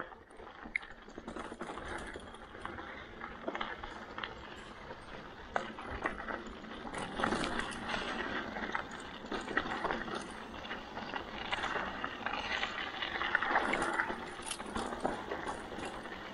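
Mountain bike riding over a rough trail: steady tyre noise with many small clicks and rattles, louder from about seven seconds in.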